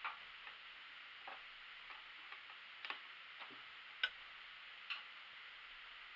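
Scattered light clicks and taps, irregular and about a dozen in all, the sharpest about four seconds in, as hands handle the fabric and the parts of a domestic sewing machine that is not running, after a finished seam.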